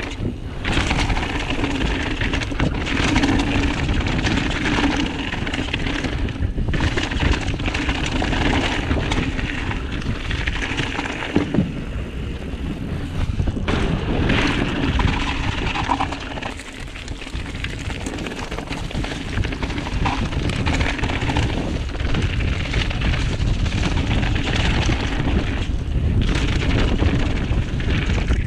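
Mountain bike riding down a loose gravel trail: tyres crunching and rattling over stones and the bike clattering, with wind buffeting the camera microphone. About halfway through the tyres run across a wooden plank bridge.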